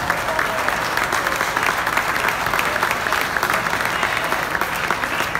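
Audience applauding: many people clapping steadily at once.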